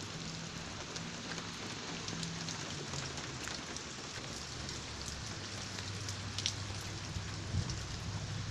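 Steady rain on a vehicle being driven: an even hiss of rain with scattered small drop ticks and a faint low hum underneath.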